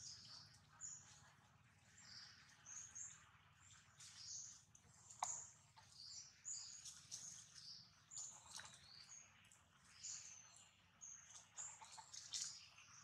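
Faint chirping of small birds, many short high calls in quick succession, with one sharp click about five seconds in.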